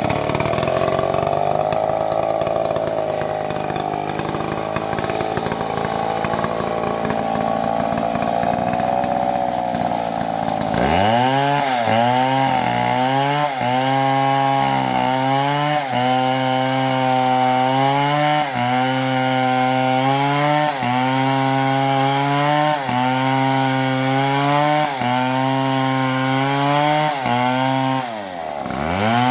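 Stihl MS720 chainsaw cutting into a tree at full throttle. For about the first ten seconds the engine holds a fairly steady pitch. After that it dips and recovers about once a second as the chain bites under load, with a deeper dip near the end.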